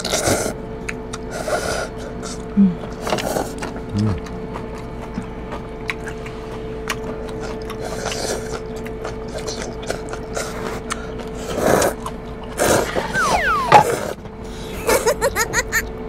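People slurping noodles, several loud irregular slurps over a steady hum. Near the end there is a short burst of laughter.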